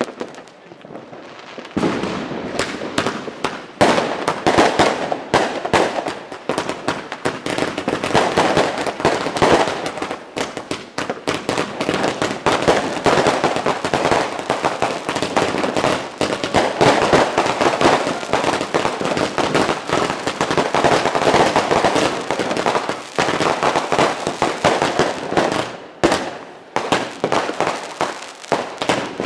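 Fireworks going off in a dense, rapid run of bangs and crackles. After a quieter first two seconds or so, the bangs come almost without a break.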